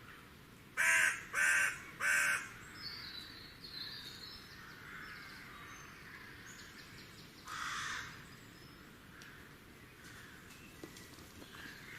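A crow cawing three times in quick succession, then once more a few seconds later, with smaller birds chirping faintly behind.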